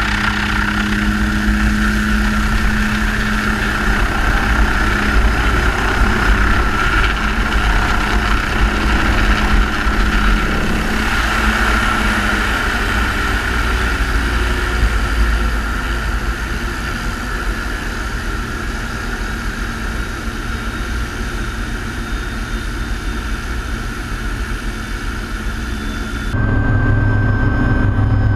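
MD500C helicopter running: steady turbine and rotor noise with a low rumble as it comes onto a ship's helipad. About two seconds before the end the sound switches to inside the cockpit, a steady high turbine whine over a low hum.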